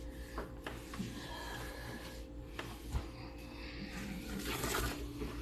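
Quiet kitchen handling sounds: light rubbing and scraping with a few soft clicks over a faint steady hum.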